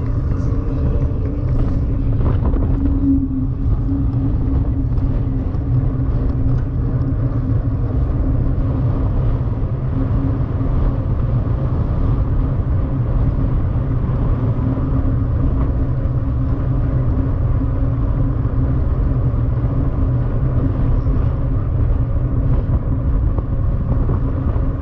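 Steady low rumble of wind and rolling noise on a moving camera's microphone, with a faint steady hum, unbroken throughout.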